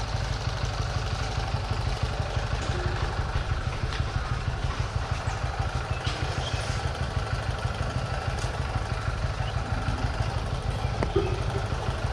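An engine idling steadily with a low, even rumble, with a few faint clicks over it.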